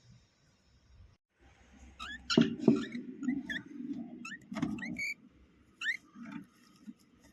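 Cockatiel giving a run of short, rising chirps from about two seconds in, over rustling, with a few sharp knocks that are the loudest sounds.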